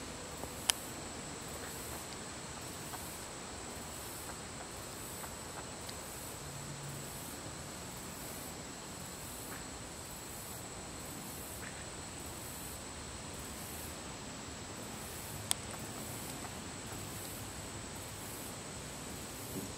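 Faint steady high-pitched insect chirring, with a soft pulsing at the top. Two sharp clicks are heard, one about a second in and a louder one about fifteen seconds in.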